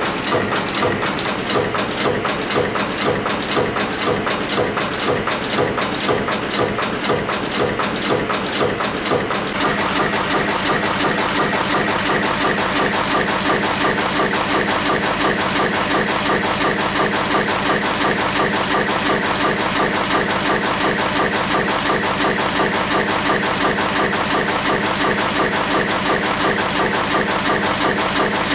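FB-220 spring forming machine running at speed, its press and bending units shearing and bending wire or strip in a rapid, even clatter of strokes. About nine and a half seconds in the rhythm changes to a different, denser cycle.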